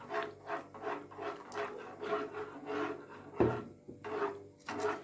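Metal spoon stirring a thin flour-and-tomato gravy in a saucepan, scraping the pan in quick repeated strokes, about three a second, mixed in fast so no lumps form. A single sharp knock comes about three and a half seconds in.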